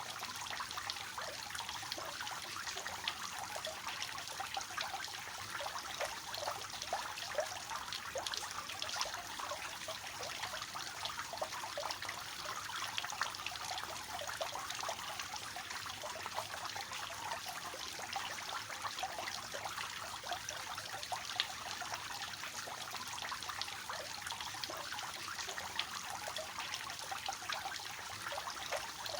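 Water from a three-tiered cascading fountain, trickling and splashing steadily into its basins, with many small splashes.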